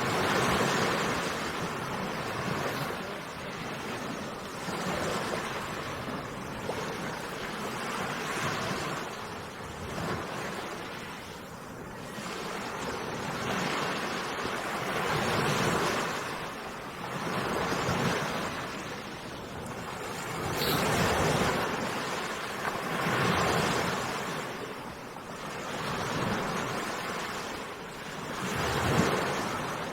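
Sea waves breaking on a beach, the surf swelling and fading again every few seconds.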